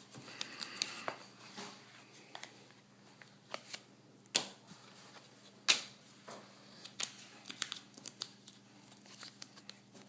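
Mail packaging being torn open and crinkled by hand, a run of irregular rustles and small snaps with two sharp clicks, one about four and a half seconds in and one near six seconds.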